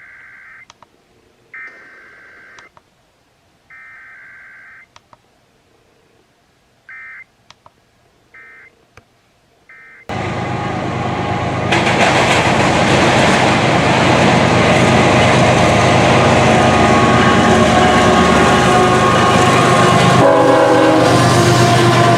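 Emergency Alert System SAME digital header tones: faint buzzing data bursts, three lasting about a second each, then three short ones. About ten seconds in, a loud, dense sound with many steady tones cuts in and runs on.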